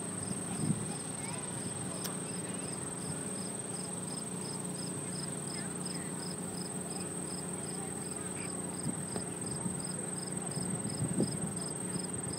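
Late-summer insects calling: crickets chirping in an even rhythm of about two to three chirps a second, over a continuous high-pitched insect trill, with a steady low hum underneath.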